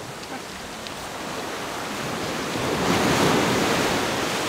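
Ocean surf breaking on a beach: the rush of water builds, crashes loudest about three seconds in, then eases back.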